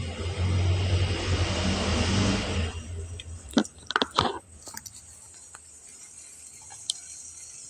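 A steady low hum with hiss, like a small motor running, stops abruptly about three seconds in, followed by a few sharp clicks and knocks.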